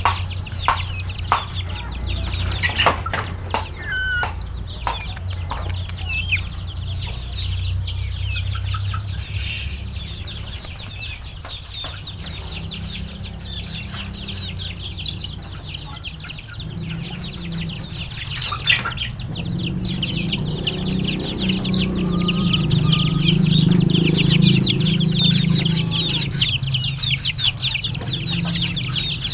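Chickens clucking, with a few sharp clicks and knocks in the first seconds and a low drone that grows louder in the second half.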